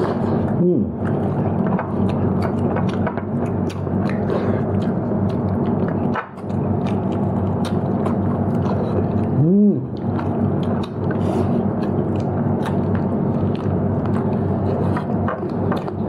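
A person eating: chewing and biting with many short clicks, over a steady low hum. Two brief rising-and-falling pitched sounds come through, about a second in and again near ten seconds.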